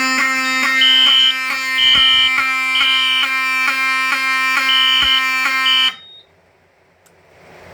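Fire alarm horn sounding loudly for about six seconds and then cutting off abruptly. It gives a steady low buzz with a high beep pulsing on and off about once a second, set off by a detector tripped during a walk test of a Silent Knight 5820XL system.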